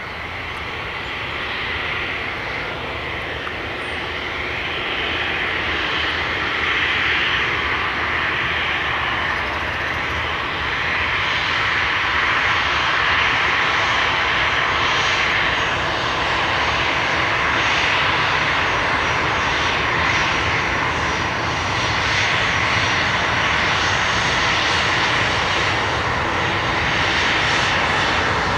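Airbus A318's twin CFM56 turbofan engines running at taxi power as the airliner rolls slowly past on the runway. It is a steady jet roar with a thin high fan whine, growing louder over the first few seconds as the aircraft comes closer, then holding steady.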